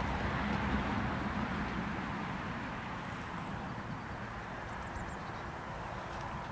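Steady low outdoor background rumble that eases slightly, with a few faint high chirps about five seconds in.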